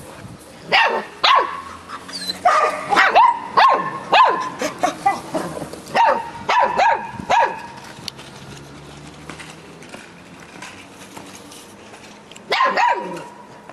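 Samoyed puppy barking and yapping in quick runs of short, high yelps that fall in pitch. The runs are broken by a pause of a few seconds before a last burst near the end.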